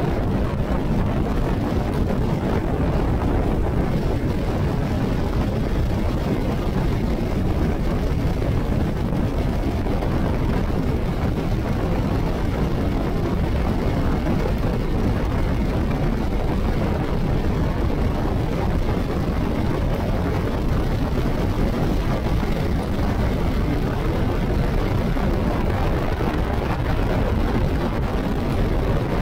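Motorcycle riding at highway speed: a steady rush of wind on the microphone mixed with tyre noise from the wet road, with no clear engine note standing out.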